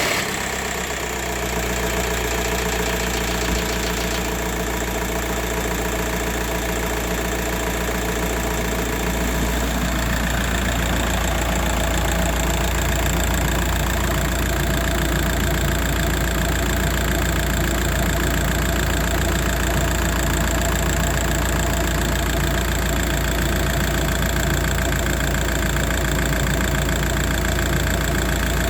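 Volkswagen Passat B5.5 1.9 TDI four-cylinder turbodiesel idling steadily in its first minute of running on fresh oil after an oil change and engine flush; the idle settles slightly about nine seconds in.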